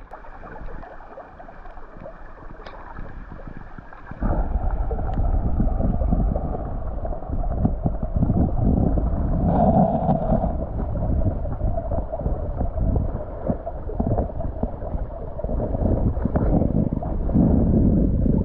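Muffled rushing and gurgling of a fast headwater stream heard with the camera held underwater, growing much louder about four seconds in.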